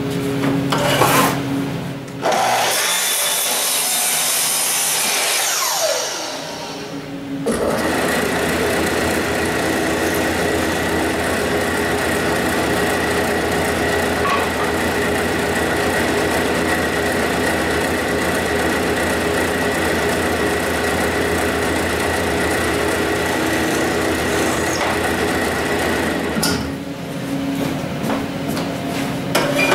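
A Makita sliding miter saw cuts through a wood board, its blade spinning down with a falling whine after the cut. Then a drill press runs steadily for about twenty seconds with a thin, steady whine, stopping near the end.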